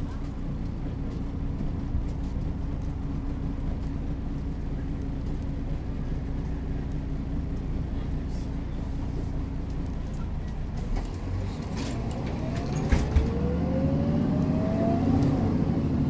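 Mercedes-Benz O405 city bus's six-cylinder diesel engine running steadily. About twelve seconds in it picks up, with a rising whine as the bus accelerates. Two sharp knocks come about thirteen seconds in.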